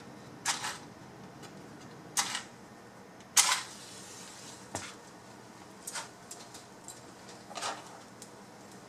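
A series of about six sharp clicks, spread irregularly about a second apart, as a lighter is worked to light a small alcohol stove.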